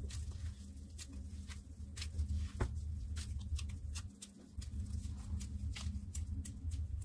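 Plastic-gloved hands kneading soft, well-ground date paste in a bowl: irregular sticky squelches and small crinkles of the glove. A steady low hum runs underneath and drops out briefly about four seconds in.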